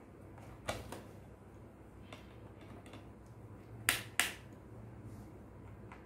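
A few sharp clicks and taps of a small screwdriver on the screws and bottom panel of a Dell G5 gaming laptop as the captive screws are loosened, the loudest two close together about four seconds in.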